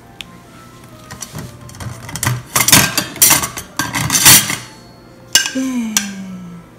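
Clatter and scraping of a knife and plates as a strawberry cream cake is cut and served, loudest in the middle, followed by a short falling voice-like hum near the end.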